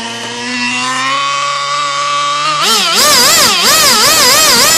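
Small nitro model engine with a tuned pipe running at high revs during break-in, still set rich. It holds a steady high whine, then about two and a half seconds in it jumps louder and higher, its pitch swinging up and down about twice a second.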